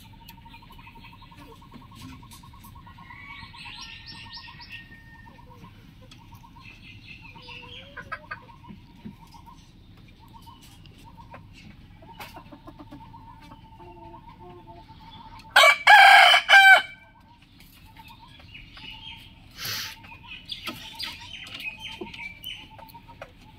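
A rooster crows once, loud and short, about two-thirds of the way through. Other birds chirp faintly around it, and a short noisy burst follows a few seconds later.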